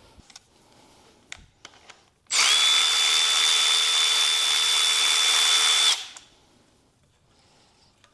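An impact wrench running in one steady burst of about three and a half seconds, with a high motor whine, backing out an intake bolt. A few light clicks come before it.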